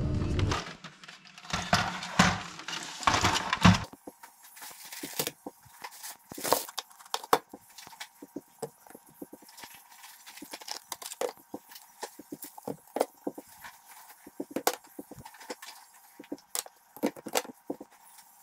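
A plastic egg carton crinkling as it is handled for about four seconds, then scattered light clicks and taps of plastic-packed groceries being set down on a countertop.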